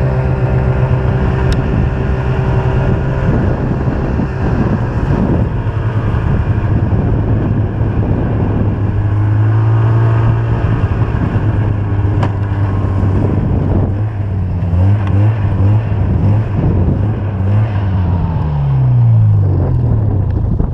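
Snowmobile engine running at speed, with track and wind noise. In the last few seconds the engine note wavers and falls as the sled slows down.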